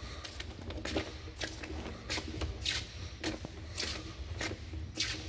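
Footsteps scuffing along the concrete floor of a round drain tunnel, about two steps a second at a steady walking pace, over a low steady rumble.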